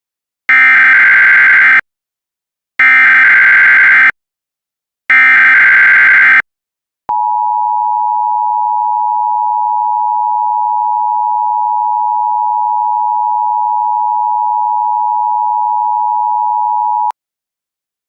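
Emergency Alert System signal: three short, harsh, buzzing data bursts (the SAME header), then the steady two-tone attention signal held for about ten seconds before cutting off. Together they announce an incoming National Weather Service alert.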